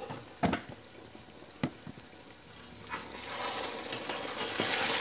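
Thick chicken masala sizzling as it cooks down in a steel pot, with two sharp knocks in the first two seconds. From about three seconds in the sizzling grows louder and stays up as the masala is stirred.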